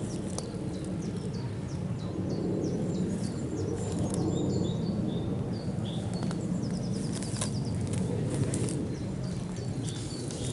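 Small birds chirping and singing, many short high notes in quick series, over a steady low rustling noise, with a few sharp clicks.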